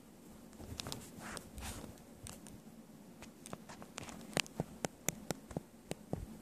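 A cat pawing and nosing a small toy on a doormat: soft rustling, then a quick run of sharp clicks and taps from about four seconds in.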